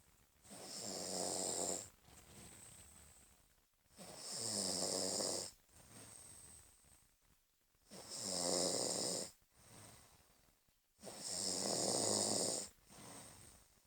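A person snoring in their sleep: four loud, rasping snores about every three and a half seconds, with a softer breath between each.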